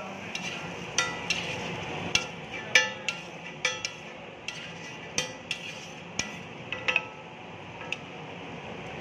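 Metal spatula clanking and scraping on a flat steel griddle as the cooked egg is scraped up and served. It gives an irregular series of sharp, ringing clanks, about fifteen in the first seven seconds and sparser near the end, over a steady low background hum.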